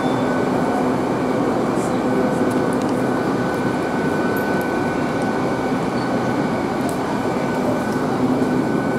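GWR Class 800 bi-mode train standing at the platform, its underfloor diesel engines idling with a steady hum.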